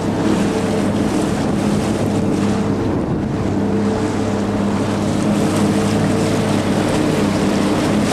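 A fishing boat's engine running steadily under way, a constant drone under the rush of water along the hull and wind buffeting the microphone.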